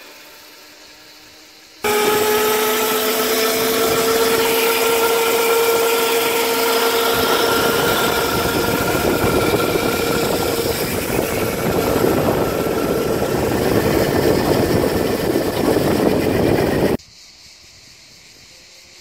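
Homemade electric kart's 1000 W 48 V DC motor and chain drive whining at speed, heard onboard: a steady tone that rises slightly at first, over rushing wind and tyre noise on asphalt. It starts abruptly about two seconds in and cuts off about two seconds before the end, leaving a faint whine.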